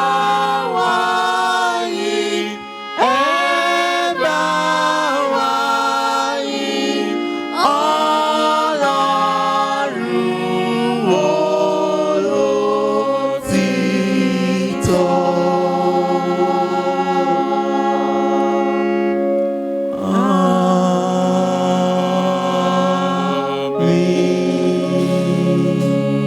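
A youth choir singing a hymn in Yoruba. Short sung phrases in the first half give way to long held notes from about halfway through.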